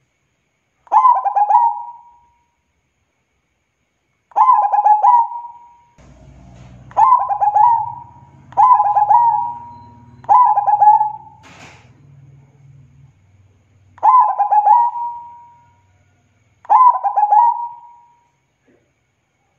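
Zebra dove (perkutut) cooing: seven phrases, each a quick stutter of notes that ends in a drawn-out coo, repeated every two to four seconds.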